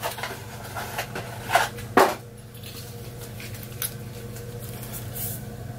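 A few short knocks and rattles of parts being handled, the loudest about two seconds in, over a steady low mechanical hum.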